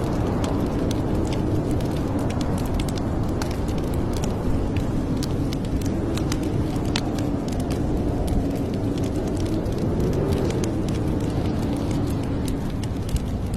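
Wood fire in a fireplace crackling, with frequent sharp pops and snaps over a steady low rumble.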